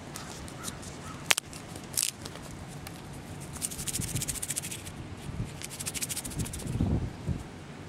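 Lead test swab handled in the fingers close to the microphone: a sharp click about a second in, then two runs of fast, light crackling and scratching.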